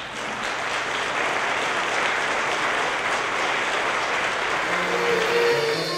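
Audience applauding steadily, with music starting to come in faintly near the end.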